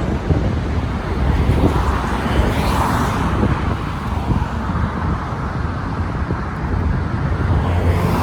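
City street traffic over a steady low wind rumble on the microphone, with a brief swell about three seconds in.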